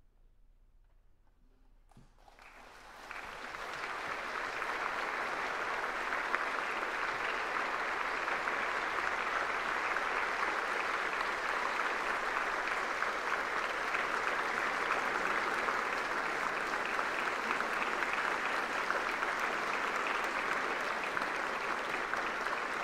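Audience applause in a concert hall. It starts after a couple of quiet seconds, swells over the next two seconds, and then holds steady.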